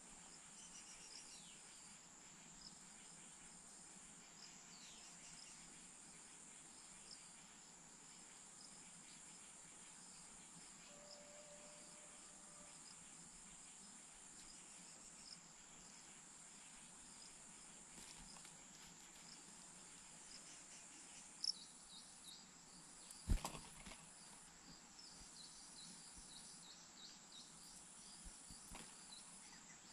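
Faint outdoor ambience of insects: a steady high-pitched buzz with an on-off pulsing layer above it, and scattered faint high chirps. Two sharp clicks come about two-thirds of the way through and are the loudest sounds.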